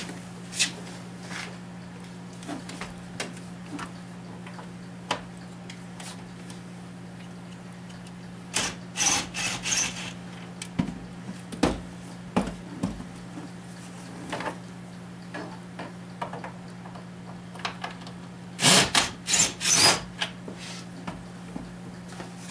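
Hand tools and plastic dash trim clicking and clattering as a vehicle interior is taken apart, with two louder bursts of clatter about 9 seconds in and near the end, over a steady low hum.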